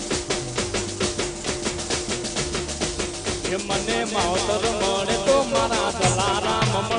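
Live Indian devotional band music: a fast, steady drumbeat on dhol and drums with keyboards. A wavering melody line comes in about halfway through.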